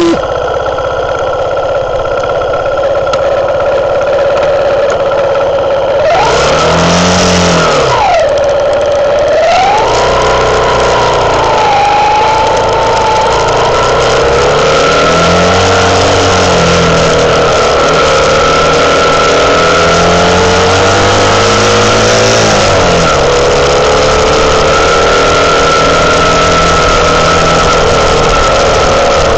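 Herald Classic motorcycle engine running steadily at idle, then revved up and down about six seconds in as the bike pulls away. It keeps running with its pitch rising and falling as the rider works the throttle down a rough track, a steady high whine over the top.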